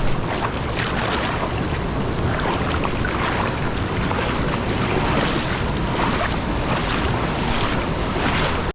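Steady rush of a flowing jungle creek, loud and even.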